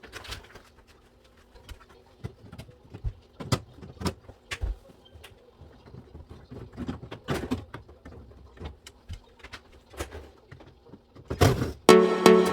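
Scattered, irregular clicks and knocks, as of objects being handled, then electronic music with a steady beat starts near the end.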